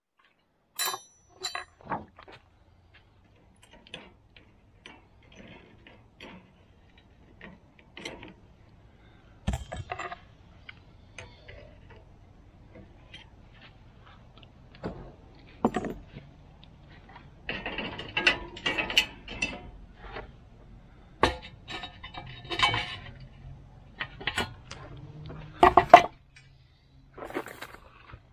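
Scattered clinks, clanks and rattles of metal kitchen utensils, pliers and a four-cavity metal loaf-pan mold being handled and set down on a wooden board, with two denser rattling spells past the middle.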